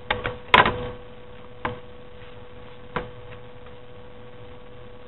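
A few short snips and clicks of scissors cutting and handling folded paper, the loudest about half a second in and two fainter ones later, over a steady electrical hum.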